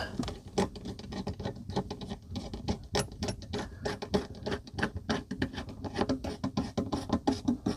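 Quick, irregular small clicks and scratches, several a second, from handling the sink's plastic drain fitting and seal while lining it up.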